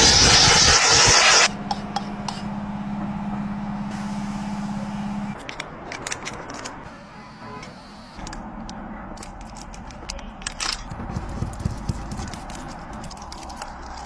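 Tyre-repair work: a loud hissing rush that stops about a second and a half in, then a steady low hum for about four seconds, then scattered clicks and scrapes of tools on the tyre.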